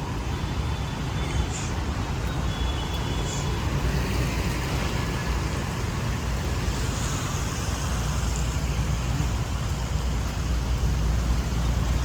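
Steady city road traffic: a continuous rumble of passing motor vehicles and tyres on the road, with a few faint short high tones in the first few seconds.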